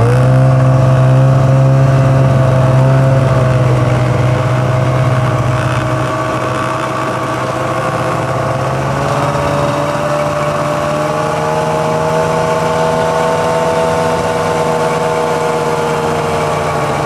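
Oliver snowmobile engine running at steady high revs under way, its pitch having just climbed as the sled pulls off, then holding and rising a little about halfway through.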